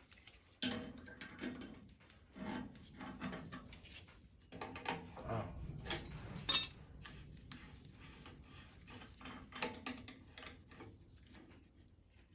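Metal clinks and knocks of hand tools and fittings being handled while a steam boiler's sight glass is taken apart, with one sharp click about six and a half seconds in.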